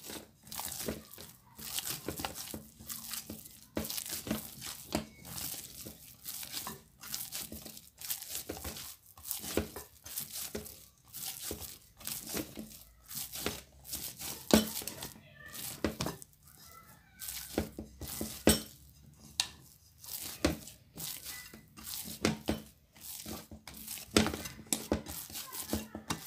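Hands kneading soft, oiled bread dough in a bowl: repeated sticky squishing and slapping as the dough is pushed, folded and pressed, about one or two strokes a second.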